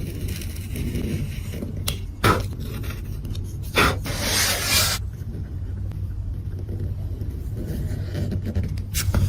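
Woodworking in a workshop: a steady low hum with a few sharp knocks, and a rough scrape of about a second near the middle.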